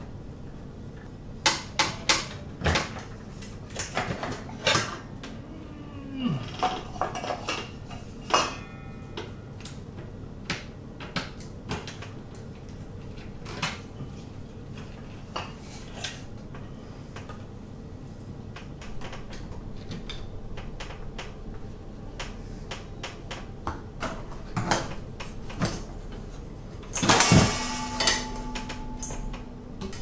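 Irregular metal clicks, clinks and rattles of screws, screwdriver and fan hardware as a ceiling fan's blades and motor housing are taken down, with one short falling squeak about six seconds in. Near the end comes a louder burst of rattling, then a short steady hum.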